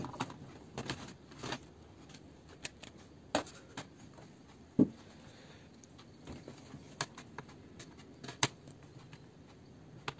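Scattered clicks and knocks of hands and a screwdriver handling a plastic laptop bottom case during disassembly, with one sharper knock about halfway through.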